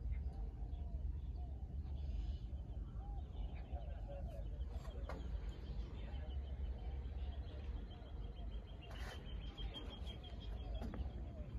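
Small birds chirping over and over, with a rapid run of high chirps in the second half, over a steady low rumble.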